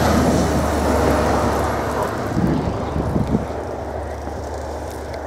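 A vehicle driving past on a snow-covered road: a rushing tyre-and-engine noise over a steady low hum, loudest at first and slowly fading as it moves away.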